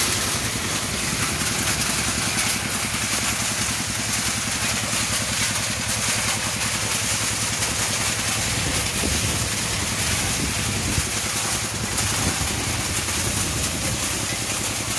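Dongfeng stationary diesel engine running steadily, turning a belt-driven rotating wire-mesh trommel screen on a mini stone crusher, with a continuous rattle of gravel tumbling through the mesh.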